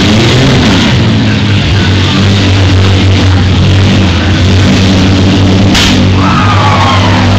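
Loud rock music playing over the arena loudspeakers, mixed with mini-van engines running in a demolition derby. A single sharp crack comes about six seconds in.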